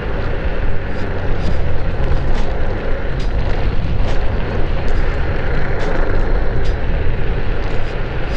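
Steady rushing wind and road noise from riding an electric kick scooter downhill at speed, with wind buffeting the microphone.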